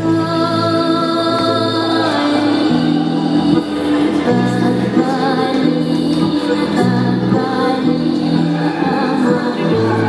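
Music with singing voices, steady and loud throughout.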